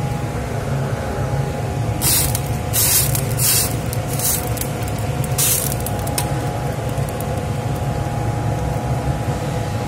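Noodles being stirred in a stainless stockpot of boiling water, giving five or six short hissing splashes between about two and six seconds in, over a steady low roar.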